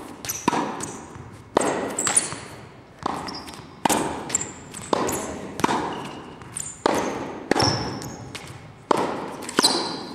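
Tennis ball struck by rackets in a fast volley rally, a sharp pock about once a second, some hits coming in quick pairs, each ringing out in the echo of a large indoor hall.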